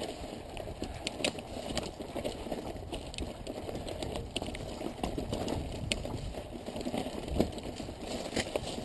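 Mountain bike riding slowly over loose rock: tyres crunching on stones, with the bike's chain and frame rattling in many small irregular clicks and knocks.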